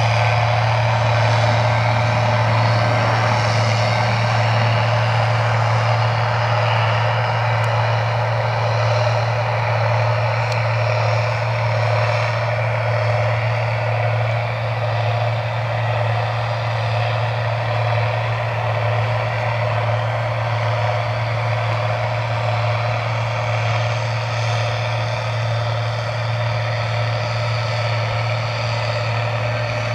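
Cotton picker working the field, heard as a constant low engine drone with an even hiss above it, unchanging throughout.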